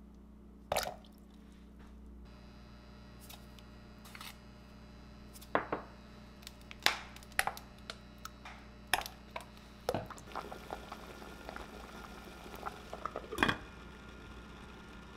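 Ingredients dropped and spooned into a stainless steel pot of soy sauce broth, with small splashes and drips and scattered knocks and clinks against the pot, over a steady low hum. Near the end, a glass pot lid is set on with the loudest clink.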